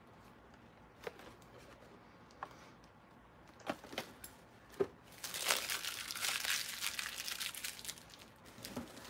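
Packaging crinkling as items are rummaged out of a storage tote: a few light clicks and taps, then about three seconds of continuous crinkling starting about five seconds in.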